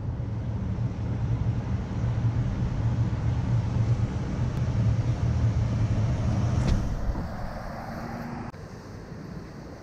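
A motor vehicle's engine running close by with a steady low hum, with a sharp click about seven seconds in; the hum then falls away, leaving quieter street noise.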